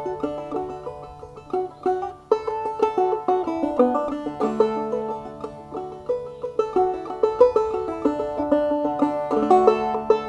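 Clawhammer banjo playing an old-time tune in a quick, bright run of plucked notes, over a low note held for several seconds at a time.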